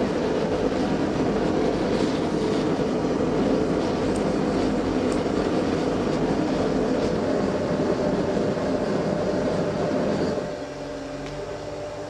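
Small gas forge's burner running with a steady rushing noise while a saw-blade steel blank heats inside it. Near the end it drops to a quieter level with a steady hum.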